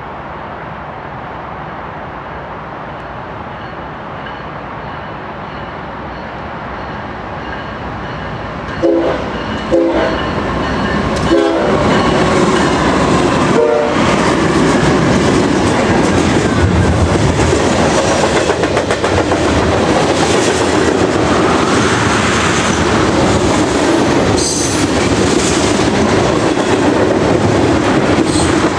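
BNSF freight train led by GE ES44DC diesel locomotives approaching with a rising rumble. As the locomotives pass, the horn sounds several blasts between about nine and fourteen seconds in. After that comes the steady clickety-clack and rattle of the freight cars' wheels going by at speed.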